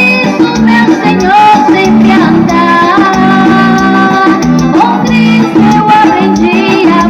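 Loud music with singing over a steady rhythmic beat.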